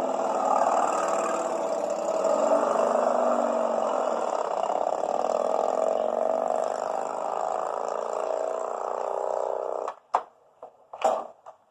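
A motor vehicle's engine running, its pitch slowly rising, cutting off abruptly about ten seconds in. A few sharp knocks follow near the end.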